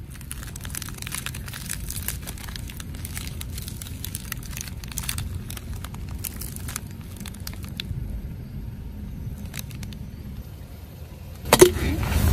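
Plastic candy-bar wrapper crinkling and tearing as fingers open a car-crushed chocolate wafer bar, with small crackles of broken wafer. Near the end, a sudden loud crack, then the low rumble of a car tyre rolling on asphalt.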